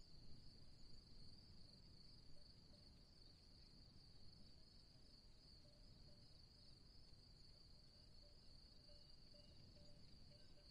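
Faint, steady high-pitched drone of insects chirring without a break, over a low rumble.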